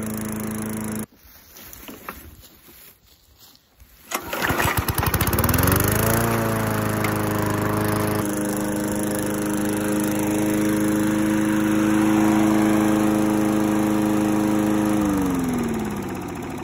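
Gas push mower's small engine: an engine sound cuts off abruptly about a second in, then the mower engine comes up in pitch as it speeds up, runs steadily for about nine seconds, and drops in pitch as it slows near the end.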